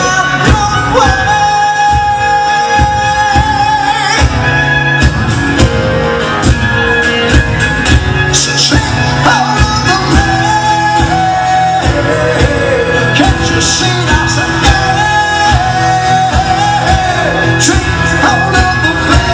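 Live band playing, with a male lead singer holding long, wavering notes over acoustic guitars and a steady beat. The sound is loud and carries the echo of a large hall.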